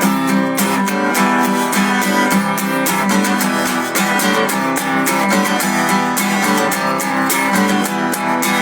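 Acoustic guitar strumming chords in a steady, even rhythm, an instrumental passage between sung lines of a song.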